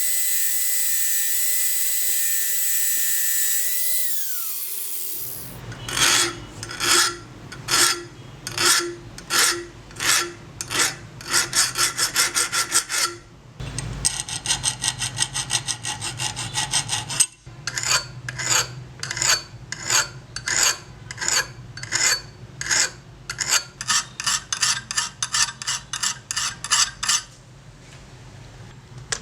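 A small power tool runs with a steady whine, then spins down and stops about four seconds in. Then comes hand rubbing or filing on the steel pruners, back-and-forth strokes about two a second, with a quicker burst of strokes near the middle.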